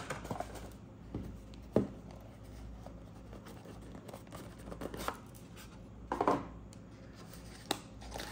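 Handling noise of a cardboard watch box being opened: card scraping and rubbing, with a few sharp knocks, the loudest about two seconds in and again about six seconds in.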